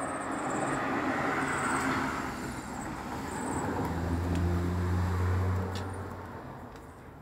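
A motor vehicle passing by: road noise and a low engine hum swell, peak about five seconds in, then fade away.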